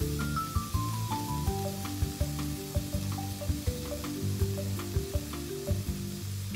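Shrimp and broccoli stir-fry sizzling in a frying pan, an even hiss with scattered sharp clicks, under background music whose melody steps down in pitch.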